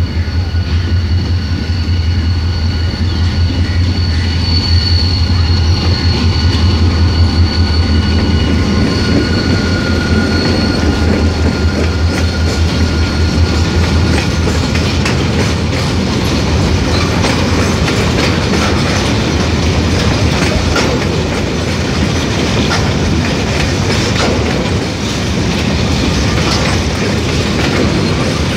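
Diesel-hauled freight train of covered box wagons passing close by at speed. A heavy low rumble is strongest over the first dozen seconds as the locomotive goes by, with a thin high whine over it. Then comes the steady clickety-clack of the wagon wheels over rail joints.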